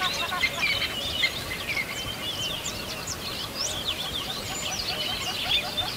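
A dense chorus of many birds chirping and twittering at once: short, overlapping calls sweeping up and down in pitch, keeping on at an even level.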